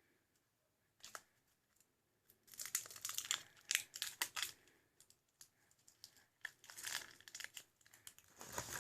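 Wrapping being torn and crinkled off a cosmetic eye pencil in irregular bursts of crackling, starting in earnest a couple of seconds in; the wrapping is stubborn to remove.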